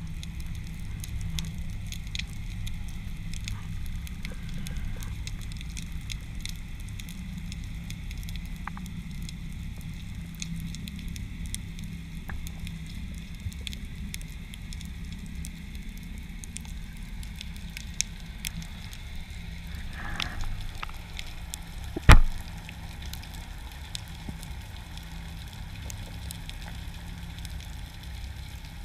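Underwater ambience heard through a camera housing: dense, constant crackling of snapping shrimp over a low rumble of moving water. One loud, sharp knock about 22 seconds in.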